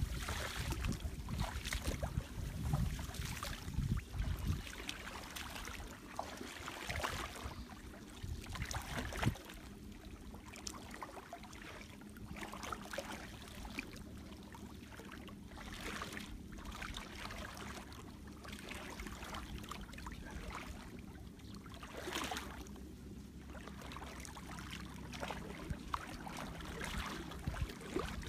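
Water sloshing and splashing with slow, irregular strokes as people wade through a shallow, weedy pond. A low rumble fills the first few seconds, then fades.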